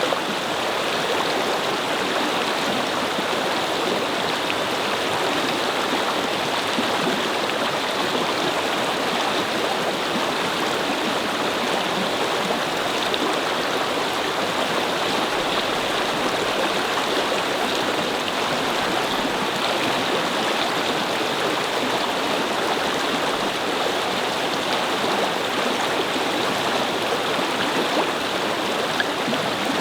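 Brook babbling: a steady rush of flowing water over stones, even and unbroken.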